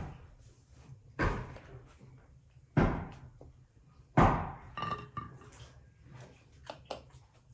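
A metal slotted spoon knocks sharply against the rim of a stainless steel pot three times, about a second and a half apart, then lighter clinks follow as the boiled pieces are set on a ceramic plate.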